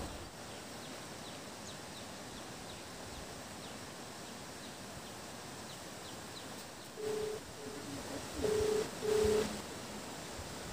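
A mobile phone's ringback tone heard through its speaker from about seven seconds in: a low steady beep in short pulses, in pairs, as an outgoing call rings. Before it, only a steady faint outdoor hiss with a few faint high chirps.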